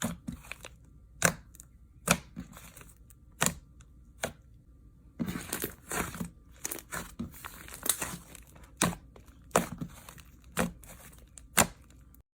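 Something crisp being cut or crushed by hand: sharp cracks and crunches about once a second, with a denser run of crackling near the middle.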